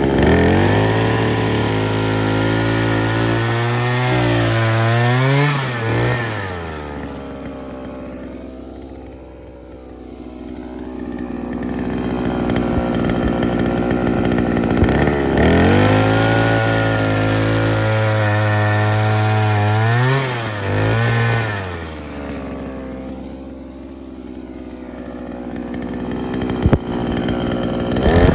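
Petrol-engine earth auger running at high revs, its pitch wavering and sagging briefly, then dropping to idle for several seconds before revving up again; the cycle repeats twice, and it revs up once more at the very end.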